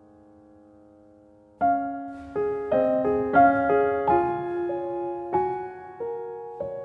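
Background piano music. A held chord fades away, then about a second and a half in a new phrase of struck notes and chords begins, each note dying away after it is struck.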